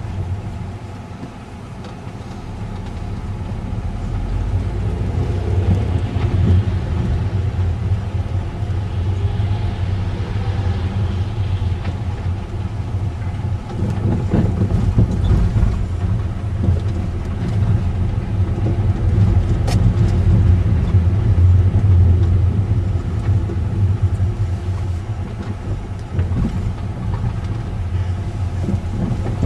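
A car driving, heard from inside the cabin: a steady low rumble of engine and tyres on a rough road, growing louder over the first few seconds.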